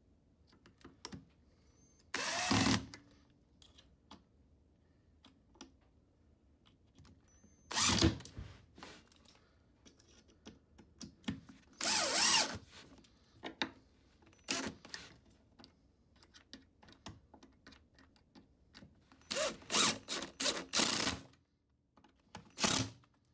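Power drill driving screws through a caster mounting plate into wood, in short bursts of a second or less with a quick run of bursts near the end. Small clicks and taps come between the bursts.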